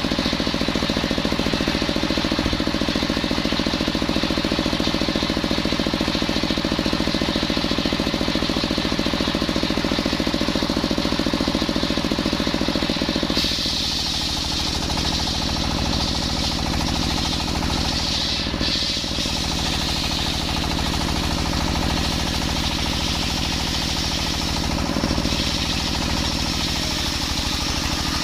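Engine-driven circular sawmill running with a steady, pulsing engine note. About halfway through, the blade bites into coconut wood: a high, rasping cutting noise comes in and the engine note drops under the load, then picks up again near the end as the cut finishes.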